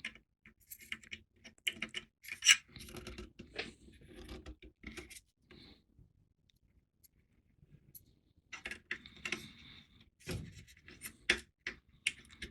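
Hard plastic model parts being handled and fitted: irregular clicks, taps and light scraping as the deflector dish is pushed into the model's hull, with a pause in the middle before more clicking.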